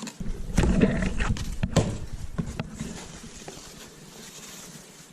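Cardboard box being opened: crackling, tearing and rustling of cardboard and packing with a few knocks, loudest in the first two seconds, then fading to faint rustling.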